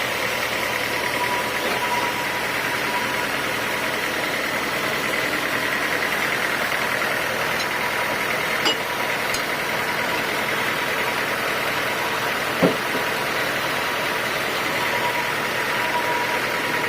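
Sawmill machinery running steadily at an even pitch, with a constant whine over a noisy hum. A few faint clicks come about eight to nine seconds in, and one sharp knock about three-quarters of the way through.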